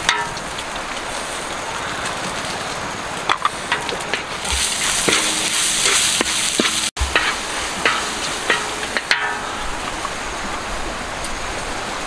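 A spice paste with chilies and leaves sizzling and frying in a large metal wok while a wooden spatula stirs and scrapes it, with scattered sharp knocks of the spatula on the pan. The sizzle swells louder for a moment around the middle.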